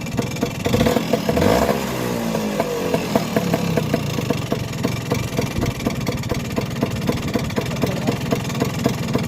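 Vespa PX scooter's two-stroke engine, blipped once about a second in and falling back to a steady idle, with a fast ticking rattle throughout. It is a top-end rattle in an engine said to be fully rebuilt.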